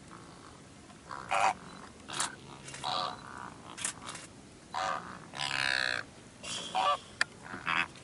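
Greater flamingos calling: a string of short honking calls, with one longer wavering call a little past the middle and a single sharp tick near the end.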